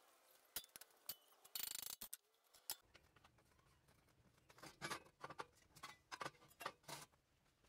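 Light metallic clicks and taps of a freshly ground-cut steel block and its thin offcut strip being handled on steel bars. There is a brief scrape about one and a half seconds in and a run of clicks in the second half.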